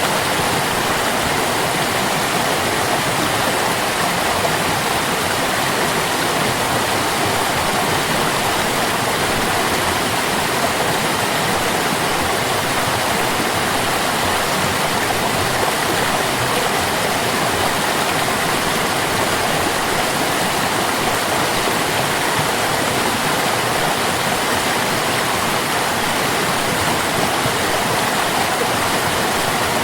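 Stream water flowing steadily: a constant, even rush with no breaks.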